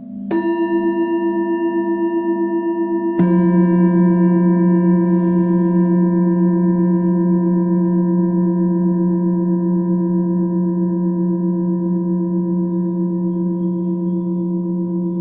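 Two strikes on tuned metal sound-healing instruments, one a fraction of a second in and one about three seconds in. Each rings on in long, steady, overlapping tones. The second strike is lower-pitched and louder.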